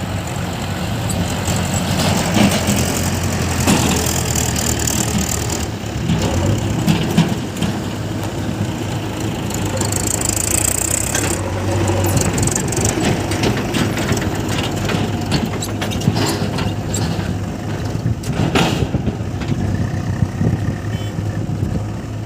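Diesel engine of a JCB 3DX backhoe loader running steadily while it loads murum into a tractor trolley, with scattered knocks and clatter from the work and a brief hiss near the middle.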